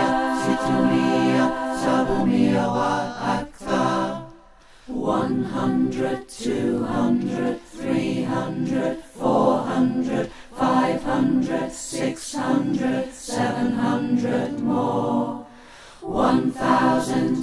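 Choir singing a cappella in short phrases, with a brief break about four seconds in and another near the end.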